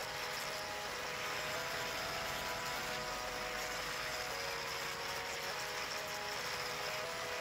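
Handheld orbital sander running steadily with a whirring hiss as it sands a wooden knife handle. Background music with sustained notes that change every second or so plays underneath.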